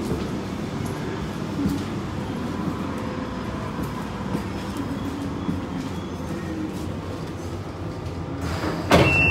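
Central Line 1992-stock tube train running slowly into the platform, a steady rumble from inside the carriage. Near the end the doors open with a sudden loud rush and a high beep.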